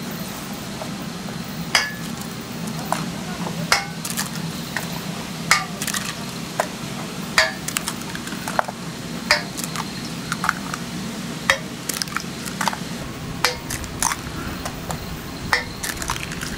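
Eggs cracked one after another against a stainless steel bowl: a sharp crack about every two seconds, with smaller clicks between, over a steady low hum.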